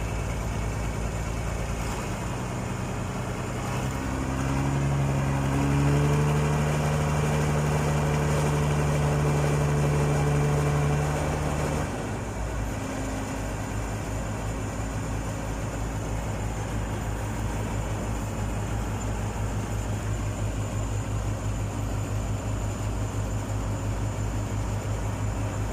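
Heavy diesel engine that revs up about four seconds in and is held at higher revs for several seconds, then drops back to a steady idle about twelve seconds in.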